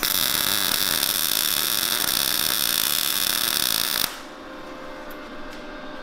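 Prime Weld MIG180 MIG welder laying a short bead to fill a pinhole in a weld, the arc giving a steady hiss for about four seconds before it cuts off suddenly.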